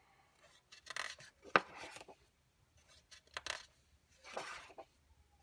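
Thick pages of a large softcover coloring book being turned by hand: about four dry paper swishes, one with a sharp flick about a second and a half in.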